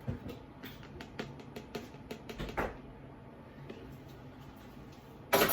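Light clicks and knocks of kitchenware being handled, a blender cup and a glass, as a blended chocolate drink is poured. One short, louder knock comes near the end.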